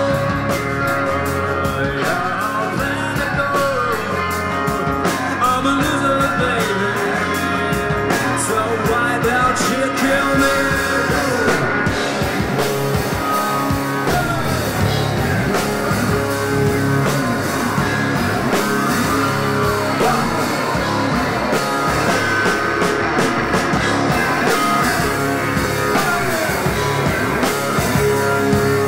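Rock band playing live: two electric guitars, bass guitar and drum kit, loud and steady throughout.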